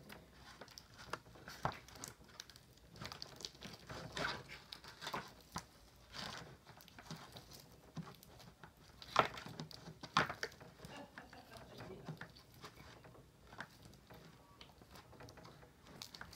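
Homemade pink glue slime, activated with saline solution, being squished and stretched by hand on a plastic lid. It gives faint, irregular wet snaps and pops as it pulls apart and off the fingers, louder twice about nine and ten seconds in. The slime is still sticky.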